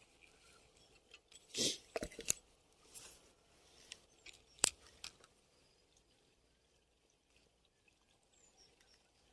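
Light spinning rod and reel being handled: a brief swish, then a few sharp clicks and small ticks, typical of a cast and the reel's bail snapping shut.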